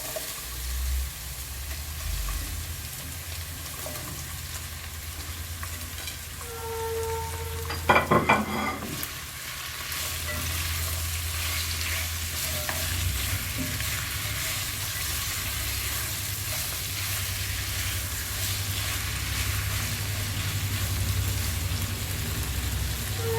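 Shrimp frying with garlic in oil in a pan, a steady sizzle while being stirred, growing a little louder after about ten seconds. A brief loud clatter about eight seconds in.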